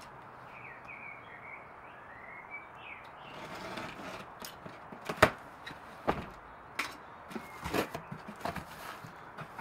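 A cardboard box being slit open with a craft knife and its flaps worked open: scraping and tearing with several sharp snaps, the loudest about five seconds in. A bird chirps faintly in the first few seconds.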